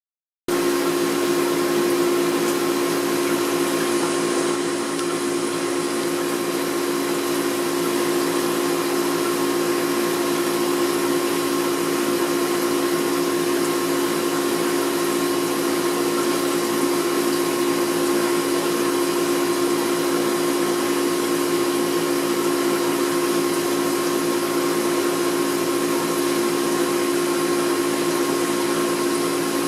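Saltwater aquarium's water pump running with a steady hum, over an even hiss of circulating water.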